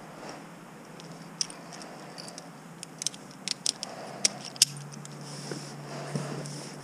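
Metal climbing hardware (carabiners and rope devices) clicking and clinking as it is handled, in a string of sharp separate clicks that are busiest around the middle.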